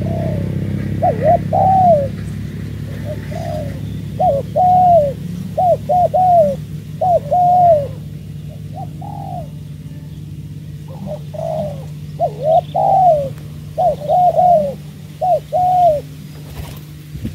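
Spotted dove cooing: repeated phrases of two or three hoarse, arching coos, with short gaps between phrases, over a low steady rumble.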